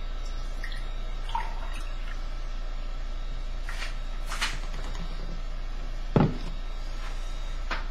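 Orange juice poured from a plastic pitcher into a glass at the start, then a few light clicks and knocks as the pitcher and glass are handled, the loudest a knock about six seconds in. A steady low electrical hum runs underneath.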